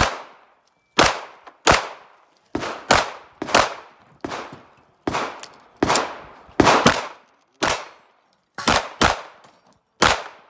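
Semi-automatic pistol firing a string of about fifteen shots at an irregular pace, several as quick pairs. Each shot has a short echoing tail.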